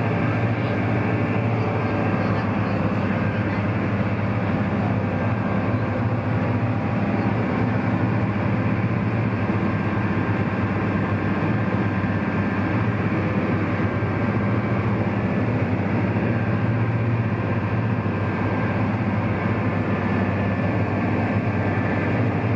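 A sightseeing boat under way: its engine runs at a steady cruising drone, mixed with the rush of water churned up in its wake.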